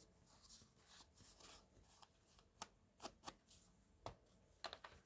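Faint paper handling while a card's edges are inked with a foam ink applicator: soft rustling of paper with a few light taps and clicks, mostly in the second half.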